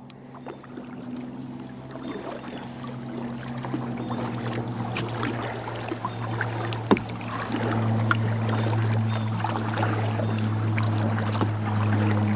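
Kayak paddle strokes dripping and splashing in the water, with scattered short clicks. Under them, background music with low sustained notes fades in and grows louder over the first several seconds.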